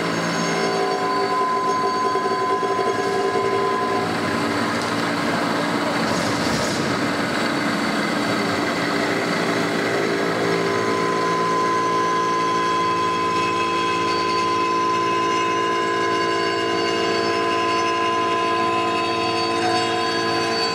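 Milling head of a TOS FUT machining centre cutting a Francis turbine runner blade: steady machining noise with a constant high whine. Lower tones drop out about four seconds in and come back around ten seconds.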